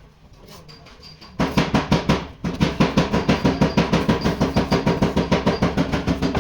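Rapid hammering on car body sheet metal, about eight ringing blows a second, starting about a second and a half in with a brief pause soon after.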